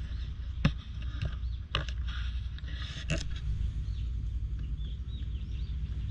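Outdoor ambience: a steady low rumble with three sharp clicks spread over the first few seconds and faint, short high chirps.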